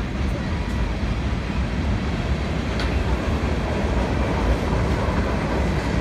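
Freight train cars rolling past on the track: a steady low rumble of steel wheels on rail, with one short click about three seconds in.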